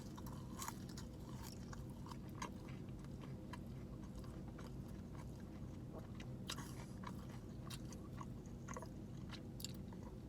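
A person chewing a mouthful of barbecue bacon burger with crispy onion strings close to the microphone: faint wet clicks and small crunches at irregular intervals, over a steady low hum.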